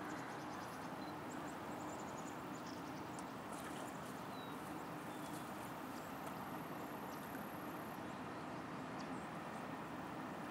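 Steady low drone of the Sam Laud freighter's engines, carried across the water, with faint, scattered high ticks and short chirps over it.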